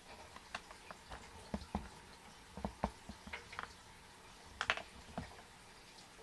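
African bullfrog gulping down a mouse: faint wet clicks and soft thumps, scattered, with small clusters about one and a half seconds in, near three seconds, and a sharper pair near five seconds.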